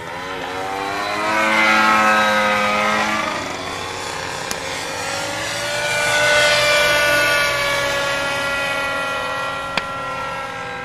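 Radio-controlled Diabolo model airplane's engine and propeller running in flight, passing by twice with the pitch sliding up and down as it nears and draws away; loudest about two seconds in and again about six seconds in. A short click near the end.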